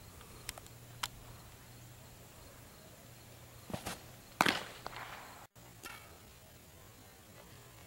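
A baseball pitched off a dirt mound: a few light scuffs of cleats, then a sharp pop a little past halfway as the ball hits the catcher's mitt.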